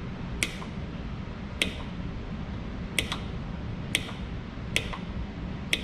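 Snips cutting tiny pieces of solder: six sharp clicks, about one a second.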